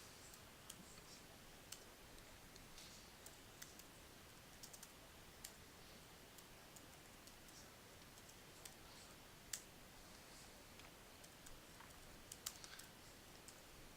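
Faint, irregular clicks and taps of typing on a computer keyboard, with a few sharper clicks standing out.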